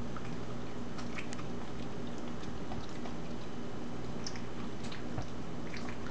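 A Corgi chewing and crunching vegetables from a plate: scattered small crunches and wet clicks, over a steady low hum.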